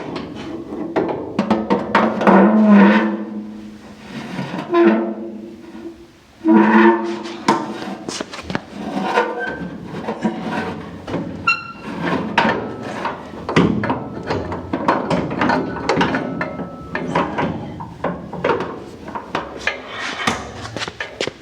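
Background music with held low notes and frequent short hits.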